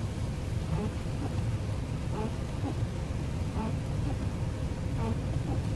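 Steady low rumble of a car driving on a wet, snowy highway: tyre and engine noise heard from inside the car's cabin.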